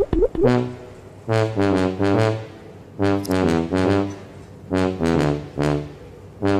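Background music: a tuba tune played in phrases of short, bouncing notes with brief pauses between them.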